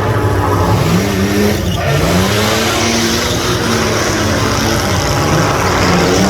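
Car engine accelerating hard, its pitch climbing, dropping near two seconds in as it shifts, then climbing again and holding.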